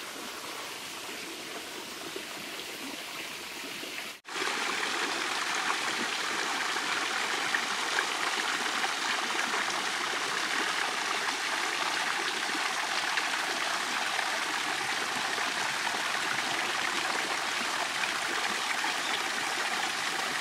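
Water running in a shallow creek. After a break about four seconds in, a louder, steady rush of water spilling through a small concrete gate in the creek.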